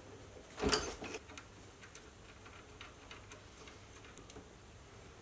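A single metallic clunk under a second in, then faint, scattered light ticks, as a three-jaw chuck is handled and taken off a metal lathe's spindle.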